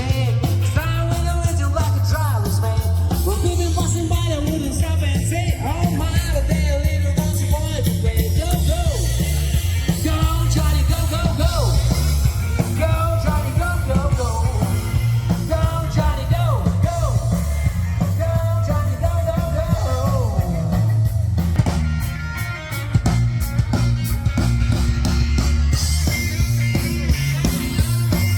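Rock music with a singing voice over a heavy, steady bass; the singing drops out for a moment about 22 seconds in.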